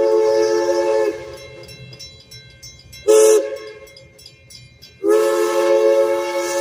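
Steam locomotive's chime whistle sounding several notes at once: a long blast cuts off about a second in, then a short toot, then another long blast starts about five seconds in. A low rumble of the moving train lies between the blasts.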